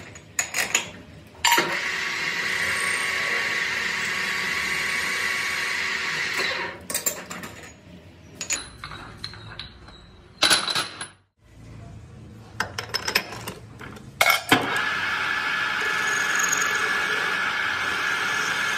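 Metal lathe running steadily with a thin high tone. In the middle come several seconds of sharp metallic clinks and clanks as solid steel bars are handled. The lathe runs steadily again near the end.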